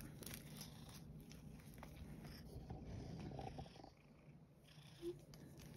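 Domestic cat purring faintly while held on a lap.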